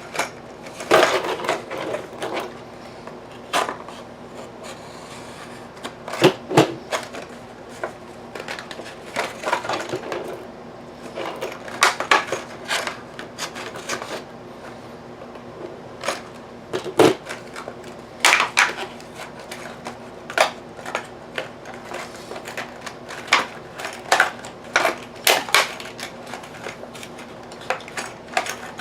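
Hands handling a patio door lock and its retail packaging: irregular clicks, knocks and rustles, a few sharper knocks standing out.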